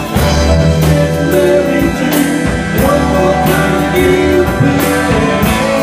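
Live band playing a rock jam on electric guitar and keyboard, with drums keeping a steady beat.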